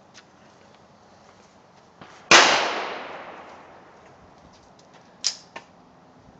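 A single handgun shot rings out about two seconds in, its report trailing off over a second or so. Two short, sharp clicks follow near the end.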